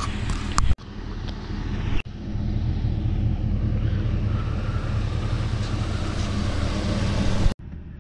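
GMC 2500HD pickup truck engine idling with a steady low hum, broken off abruptly a few times: about a second in, about two seconds in, and near the end.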